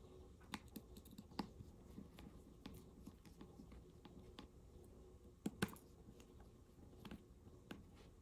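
Faint, scattered clicks and ticks of a small screwdriver tightening the tiny screws in a phone's frame, with two louder clicks about five and a half seconds in.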